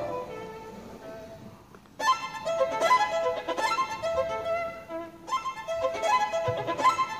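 Violin playing: a held note fades away over the first two seconds, then a loud run of quick notes starts suddenly about two seconds in, easing briefly around five seconds before going on.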